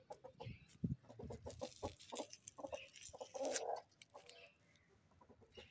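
Rooster clucking in short, repeated calls, with one longer, louder call about three and a half seconds in.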